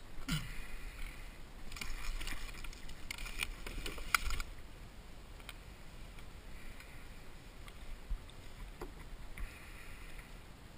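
Water splashing and dripping as a landing net with a netted salmon is lifted out of the river into a kayak, with a sharp knock about four seconds in. After that, fainter rustling and a few small clicks as the net is handled.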